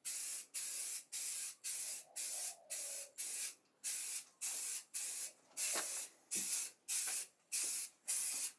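Aerosol spray can of primer being sprayed in short, even bursts, about two a second, laying a light coat.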